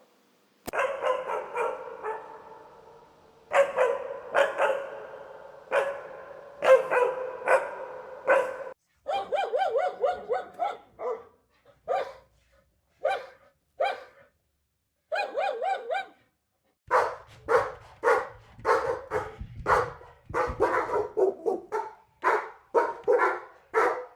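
Dog barking in a sequence of separate takes: single and doubled barks, some with a lingering echo, then a faster run of repeated barks in the last third.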